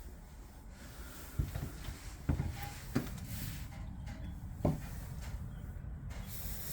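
A few soft knocks and thumps, about four spread over several seconds, over a low steady rumble in a small room.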